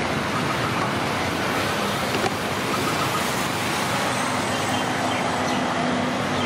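Steady street traffic noise: cars and motorbikes passing along the road, with a low engine drone joining about four seconds in.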